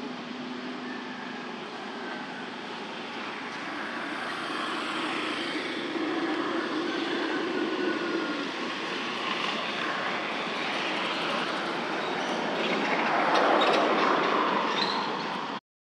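A steady engine-like rumble of passing motor traffic, growing gradually louder to a peak a few seconds before the end, then cut off suddenly.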